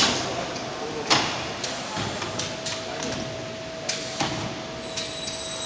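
Automated profile-splicing machine at work: a string of irregular sharp clicks and knocks from its moving parts. A steady hum starts about two seconds in, and a thin high whine joins it near the end.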